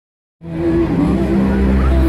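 Music with long held notes, starting suddenly about half a second in, playing over a musical fountain show's loudspeakers.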